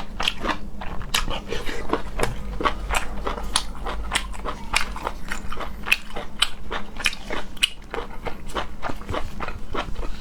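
Close-up mukbang eating sounds: a person biting and chewing food, with many quick, irregular crunchy and wet clicks, several a second.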